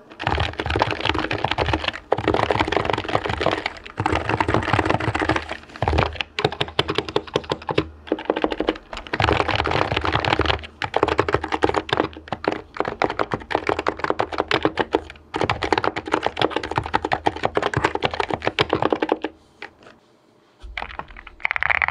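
Fast, continuous typing on an HHKB Professional Hybrid Type-S keyboard with silenced Topre switches, in runs of about two seconds with short breaks. The typing stops about 19 seconds in. Just before the end, a brighter, higher-pitched typing begins.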